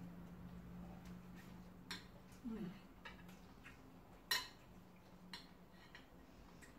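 Spoon and fork clicking and scraping against plates while eating, a few separate sharp clicks with the loudest about four seconds in, over a faint low steady hum.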